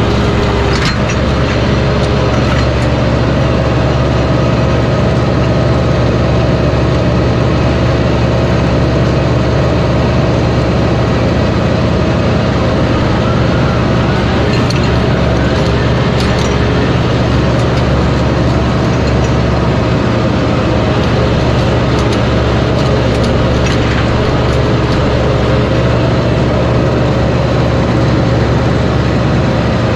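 Mahindra tractor's diesel engine running steadily under load while pulling a chisel plow through hard, compacted ground, with a few brief knocks over the drone.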